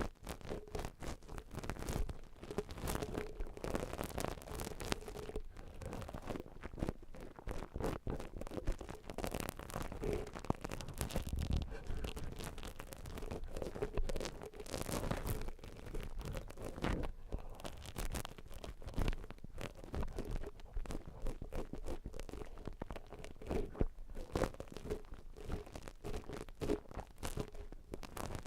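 Ear-cleaning tools scratching, scraping and crackling against a silicone ear model right at the microphone, a dense run of small irregular clicks and rustles.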